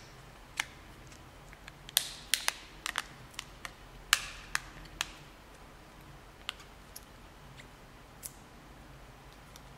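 Sharp plastic clicks as the Samsung ATIV S's back cover is pressed on around its edges and its clips snap into place. The clicks come in a cluster about two to five seconds in, then a few fainter ones further apart.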